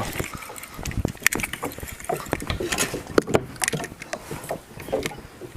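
A hooked bass being landed at a kayak: irregular knocks, clicks and splashing as the fish is brought in and handled.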